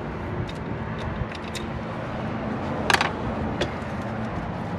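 Scattered sharp plastic clicks and snaps from a battery-cover lid's clips being pried with a screwdriver, the loudest about three seconds in, over a steady low background hum.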